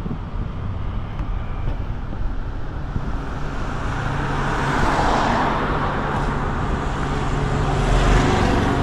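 Car engine and tyre noise while driving slowly along a road: a steady low rumble with a broad hiss that swells to its loudest about five seconds in.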